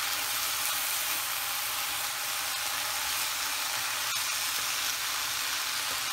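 Vegetable strips sizzling steadily in a pan on the stove while being turned with a wooden spoon. There is a single faint click about four seconds in.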